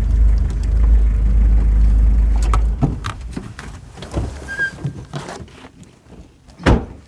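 Vehicle driving, heard from inside the cab as a strong low rumble that fades out about three seconds in. Scattered clicks and knocks follow, with one loud, sharp thump near the end.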